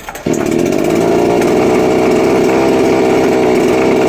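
Petrol two-stroke chainsaw engine firing up about a quarter second in and then running steadily at an even pitch.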